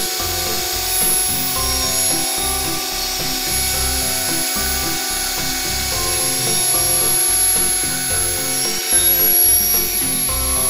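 Background music with steady notes that change pitch every half second or so over a low repeating bass.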